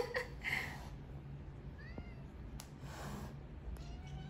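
House cats calling: a short loud cry right at the start, then one faint short meow about two seconds in.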